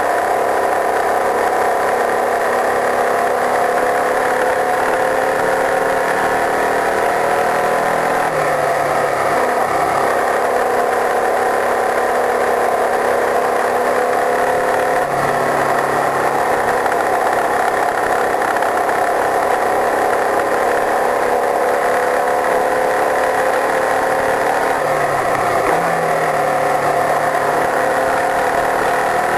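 Open-wheel race car's engine running hard at speed on track, heard from the car with wind and tyre noise over it. The engine note shifts in pitch a few times, about a quarter, half and five-sixths of the way through, as the driver changes gear or lifts for corners.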